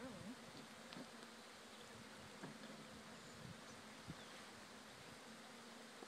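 Honeybees of a freshly moved swarm buzzing faintly around the hive, a steady low hum.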